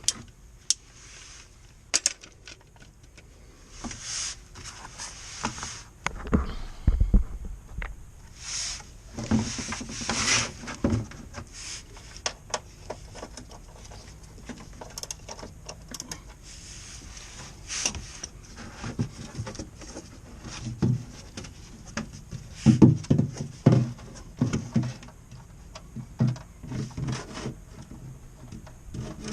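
Irregular clinks, clicks and rustling of hand tools and parts being handled under a car during an oil change, with a few low thuds about seven seconds in and a burst of knocks near the end.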